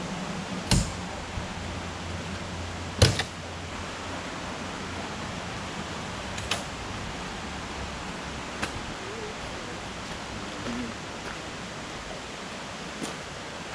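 Steady rush of a nearby river, with a few sharp clacks of a metal folding table being unfolded and set up; the loudest two come in the first three seconds, then a few lighter knocks.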